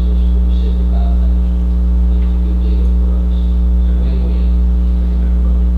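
Loud, steady electrical mains hum with a stack of steady overtones, from the meeting's audio feed. Faint, indistinct voices come and go underneath.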